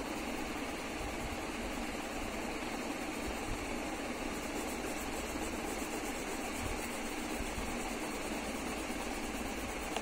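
Steady, even background noise.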